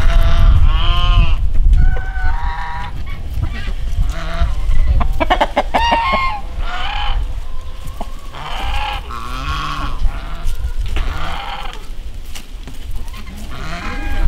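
Farmyard fowl calling: a string of loud, pitched calls about every one to two seconds, over a steady low rumble.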